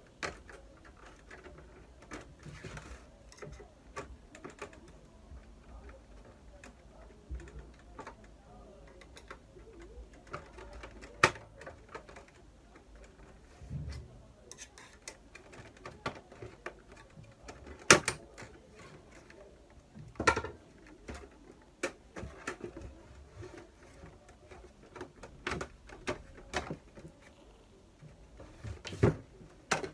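Black plastic cover of a Samsung ML-1660 laser printer being pried off by hand: scattered clicks and snaps with handling and scraping noise between them. The sharpest snaps come about 11 and 18 seconds in, with more a little after 20 seconds and near the end.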